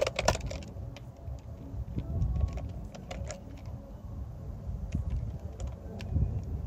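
Handling of a cordless impact wrench and its socket: a quick cluster of clicks at the start, then scattered light clicks and knocks over a low rumble. The wrench is not hammering.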